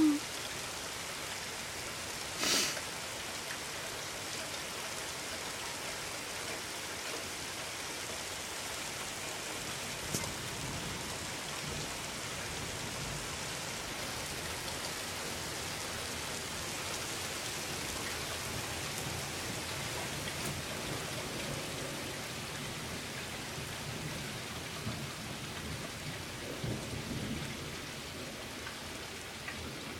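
Steady rain falling during a thunderstorm, with low rumbles of thunder swelling and fading, most clearly near the end. A brief sharp crack comes about two and a half seconds in.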